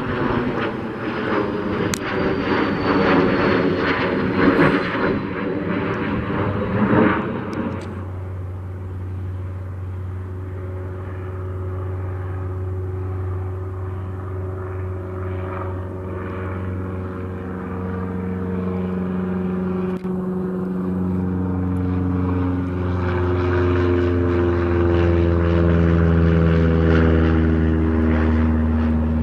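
A Cessna Citation CJ3 business jet roars past with a faint falling whistle for about 8 seconds. It then cuts abruptly to a Cessna 172 Skyhawk SP's four-cylinder piston engine and propeller droning steadily, its pitch shifting now and then and the sound growing louder near the end.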